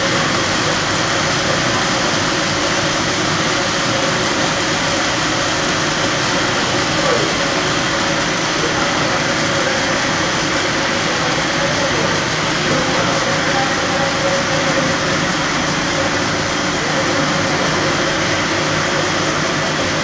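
Polypropylene tape and baler twine production line running: a steady, even machine noise with a constant mid-pitched hum from its motors and rollers drawing the plastic film.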